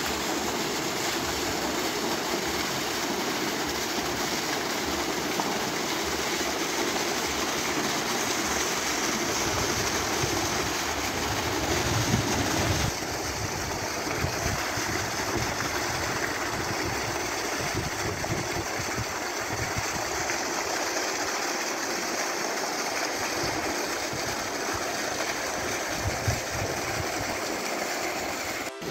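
Steady rush of water at a polar bear's pool. A few low bumps come through now and then.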